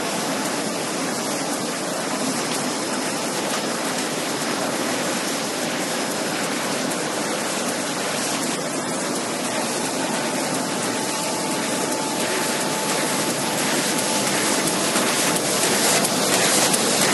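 Automatic die-cutting machine running: a steady, dense mechanical hiss with a faint steady whine, getting louder over the last few seconds as the machine's sheet feeder comes close.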